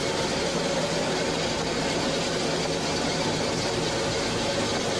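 A steady mechanical drone: constant noise with several held low tones that neither rise nor fall.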